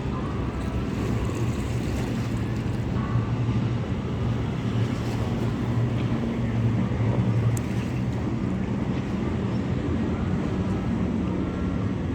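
Boat engine running with a steady low drone, over a haze of water and wind noise.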